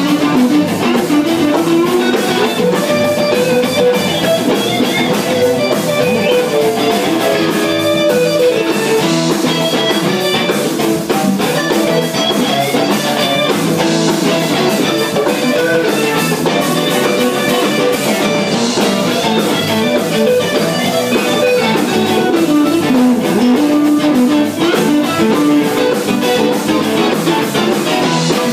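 Live band jamming: guitars playing busy melodic lines over drums, loud and steady.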